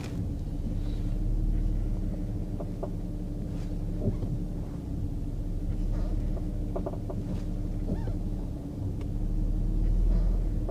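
Audi car running and braking, heard from the cabin: a steady low rumble with a handful of short, light knocks like metal tapping from the right front, which show up under braking. The mechanic later puts the knock down to a worn rubber bushing on a right front suspension link.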